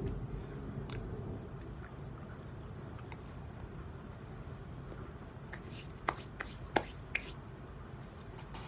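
Low rumble of distant thunder, fading over the first couple of seconds into a steady low background rumble. A few short, sharp clicks come about six to seven seconds in.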